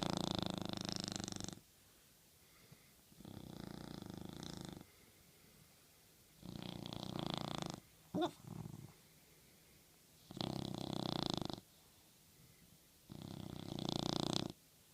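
Small toy-breed dog snoring in its sleep: five snores roughly every three seconds, each lasting about a second and a half, with a short squeak just after the third.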